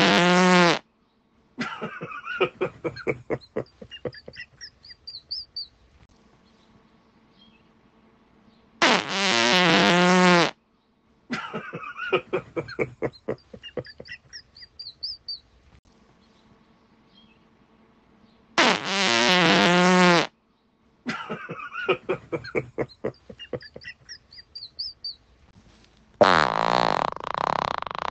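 A loud, drawn-out fart about a second and a half long, followed by a sputtering run of quick pops that thin out, with faint high chirps among them. The same sequence plays three times, about ten seconds apart, and a different loud, rasping sound starts near the end.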